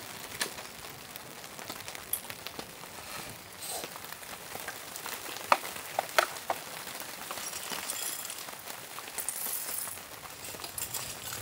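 Steady patter of rain, with a few sharp clinks of handled metal or glass gear about halfway through.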